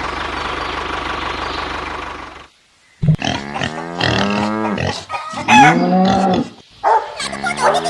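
A small tractor engine runs steadily and stops about two and a half seconds in. After a short silence, farm animals call loudly several times in a row, the pitch of each call bending up and down.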